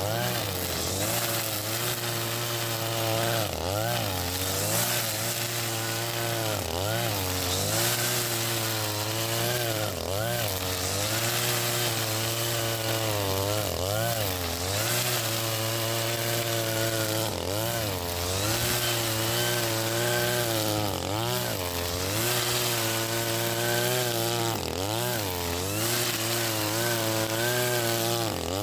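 Husqvarna 542RBS 42 cc two-stroke brushcutter running at high revs, spinning square nylon trimmer line through grass. Its pitch dips and recovers again and again, every second or two, as it cuts.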